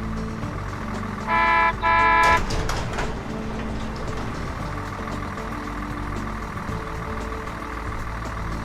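Cartoon bus horn sounding two short honks in quick succession, over light background music.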